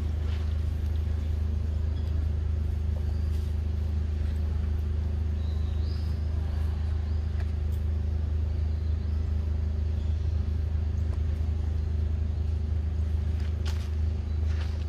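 A steady low motor hum that holds a constant pitch and level throughout, with a few faint clicks.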